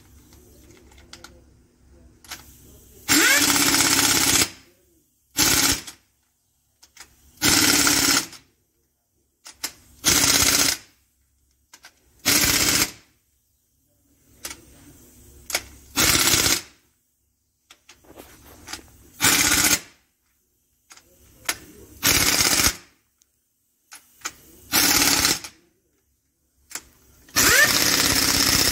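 Air impact wrench hammering in about ten short bursts, each half a second to a second and a half long and a couple of seconds apart. It is running the cylinder head bolts of a WD615 truck diesel down snug, ahead of final tightening by hand.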